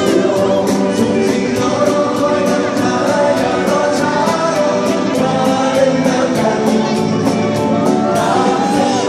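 Live concert music: a singer with a full band over a steady drumbeat of about two beats a second, loud through a phone microphone in the crowd.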